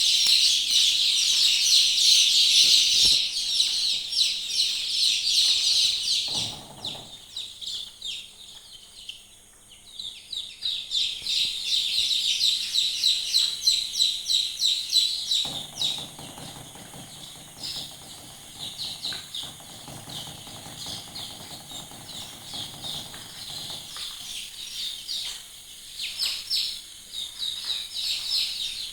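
A flock of chicks peeping continuously, many rapid high chirps overlapping, loudest for the first six seconds or so and then quieter.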